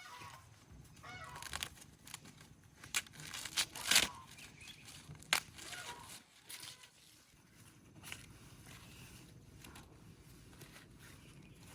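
Farm poultry calling in short pitched calls during the first half, among a few sharp clicks and rustles; after about seven seconds only a low steady background remains.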